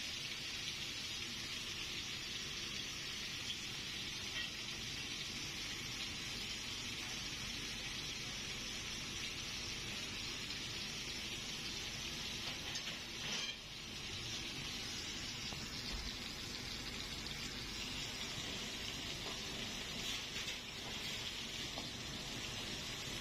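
Bone-in beef steak frying in hot oil in a pan: a steady sizzle with a few small pops, dipping briefly about halfway through.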